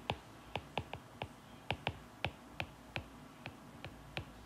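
Stylus tip tapping and clicking on a tablet's glass screen during handwriting: a string of sharp, light clicks at an uneven pace of about three a second.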